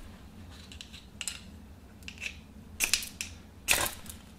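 A fire steel (ferro rod) scraped with a striker to throw sparks into a brass spirit burner of methylated spirits to light it: four short, sharp scrapes, the last two the loudest.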